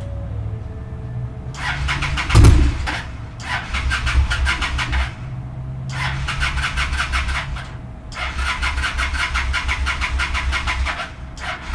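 Cruiser motorcycle's electric starter cranking the engine in repeated bursts of two to three seconds, again and again, without the engine settling into a run. There is a loud pop during the first crank. The hard starting is what the owner hopes to fix without pulling and rebuilding the carburetors.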